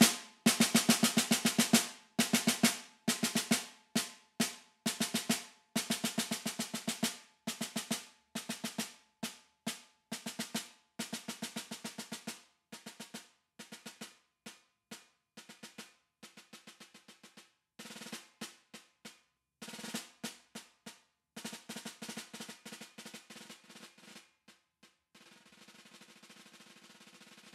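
Concert snare drum played solo with wooden sticks: sharp strokes and short rolls that grow steadily softer through the passage, ending in a very quiet sustained roll near the end.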